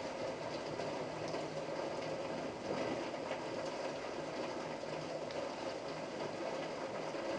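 Steady thunderstorm rain falling: an even hiss with faint scattered ticks of drops.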